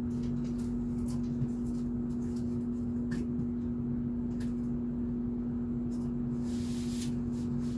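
A steady electrical-sounding hum fills the room, with a few faint clicks and knocks of an object being handled and set down on a shelf.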